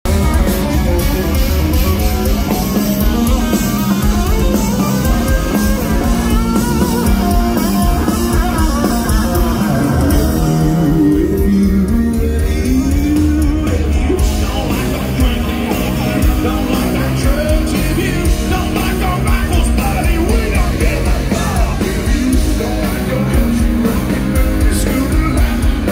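Live rock band playing through a concert sound system, with electric guitars, drums and a lead singer.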